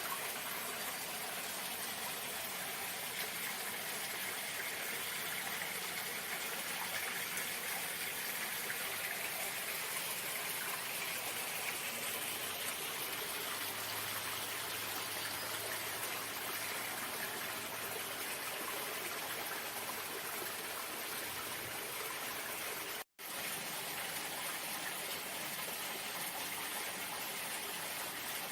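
Running water flowing steadily, a constant rushing hiss with no change in level. It cuts out completely for an instant about 23 seconds in.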